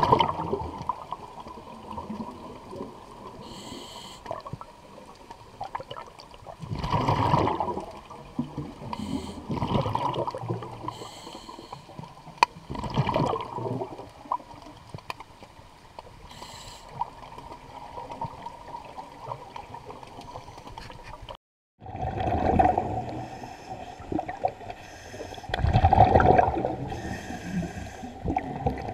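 Underwater bubbling from a diver's exhaled breaths, coming in surges every few seconds over a low steady water wash. The sound cuts out completely for a moment about two-thirds of the way through.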